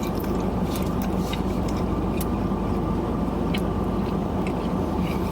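Steady low hum of a running vehicle engine, with a few faint clicks.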